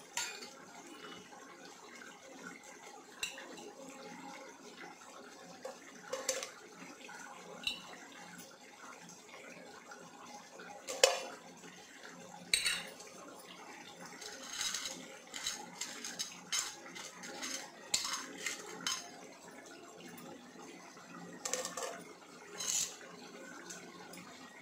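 Dry whole spices dropped into an empty aluminium pot: scattered light clinks and taps on the metal, one louder clink about eleven seconds in and a run of them a few seconds later, over a faint steady hiss.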